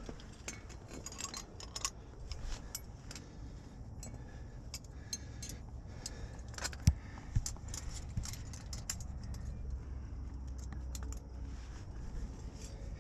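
A climbing rack of metal carabiners and gear clinking and jangling in scattered light clicks, with two dull knocks about halfway through.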